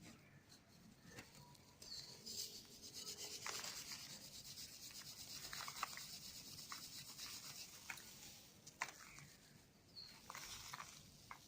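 Dry cement balls and cubes crumbling, a faint gritty rubbing and crunching with scattered sharp crackles.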